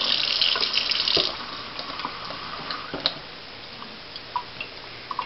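Kitchen tap running into a stainless steel sink, shut off about a second in. After that, only faint drips and small sounds of an egg being rubbed in a wet paper towel.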